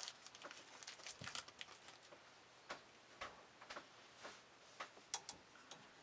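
Faint, irregular clicks and light taps from hands handling copper refrigerant tubing and fittings at a freezer compressor, with a cluster of quick clicks early on and then single ticks every half second or so.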